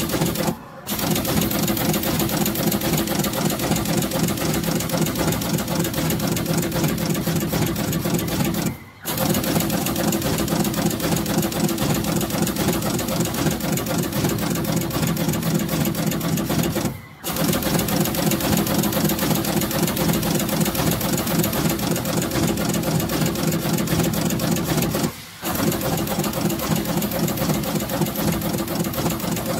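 Automatic radial component inserter running, its head cutting, inserting and clinching LEDs into a traffic-signal circuit board in a rapid, even clatter over a steady low hum. The running sound drops out briefly four times, about every eight seconds.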